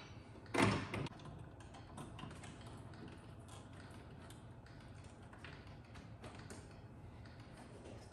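Faint clicks and taps from a pinball machine's backbox lamp panel being handled and swung open on its hinge, with one louder knock about half a second in.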